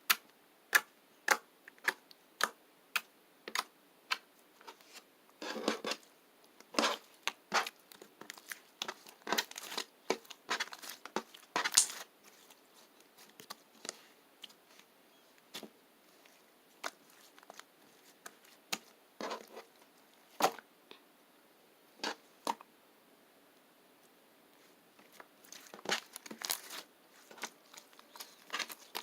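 Slime being squeezed and stretched by hand, giving sharp popping clicks, at first about two a second, then in quick crackling bunches.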